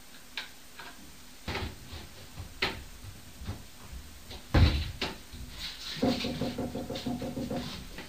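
Scattered sharp knocks and thumps in a flat, with one heavy thud about four and a half seconds in, then a rapid rattling buzz with a steady pitch lasting about a second and a half near the end.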